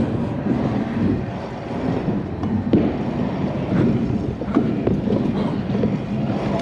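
Stunt scooter rolling fast over an indoor pump-track ramp surface: a steady wheel rumble, with a handful of sharp knocks and clanks from the scooter as it hits the transitions.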